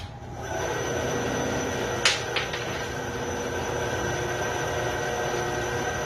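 Bandsaw switched on with a click, its motor spinning up within about half a second and then running steadily with a whirring hum. Two short sharp ticks come about two seconds in.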